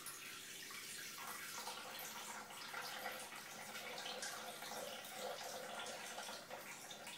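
Water pouring in a steady thin stream into a Thermomix's stainless-steel mixing bowl.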